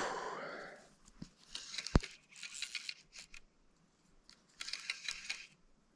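Short bursts of splashing from a hooked cutthroat trout thrashing at the surface on a fly line, with a single sharp knock about two seconds in.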